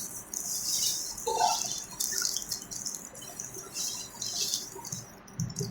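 Water running from a tap and splashing unevenly, as a hiss that swells and fades.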